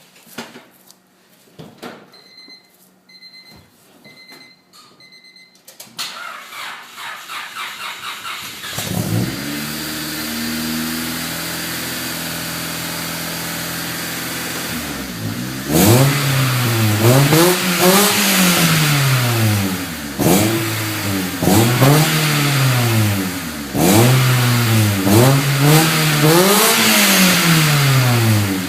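A few short beeps, then a Honda Civic EX engine cranking for about three seconds before it catches; the hard start comes from an almost dead battery. It settles into an idle that the owner says is off because of a couple of hoses. From about halfway through it is revved again and again, the exhaust note rising and falling with each rev.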